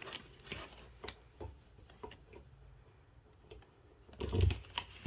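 Handling noise as a power cord is plugged in: scattered light clicks and knocks, with a louder low thump about four seconds in.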